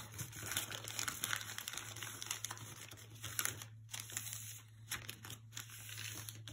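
A sheet of newspaper being folded up by hand and creased flat against a wooden table: soft, irregular rustling and crinkling of the paper.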